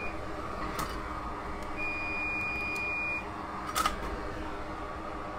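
An electronic beep, one steady high tone held for about a second and a half near the middle, with a short click about a second before it and another a little after, over a steady background hum.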